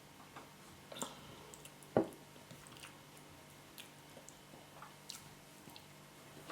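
A person chewing soft yam and spinach: scattered small wet mouth clicks and smacks, with a louder click about two seconds in.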